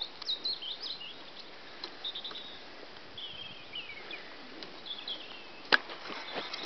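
Small birds singing in the background with thin, high chirps and a descending trill. Near the end a sharp knock as a lamb's face bumps against the camera.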